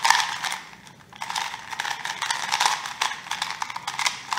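A QiYi MS 2x2 magnetic speed cube being turned quickly by hand: rapid runs of light plastic clicks and clacks as the layers turn, with a short pause about a second in.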